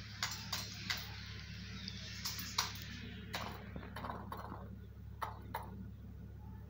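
Peacock's beak tapping a small steel bowl, giving sharp metallic clinks, about nine in irregular groups, over a steady low hum.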